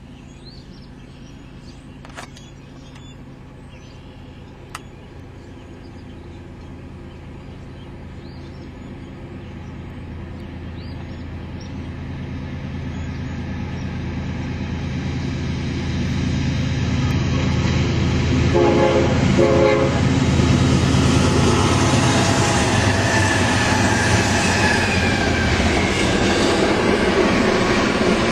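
BNSF diesel freight train approaching, its engine rumble growing steadily louder, with a brief horn sound about two-thirds of the way through. Intermodal trailer cars then roll past close by with loud wheel and rail noise.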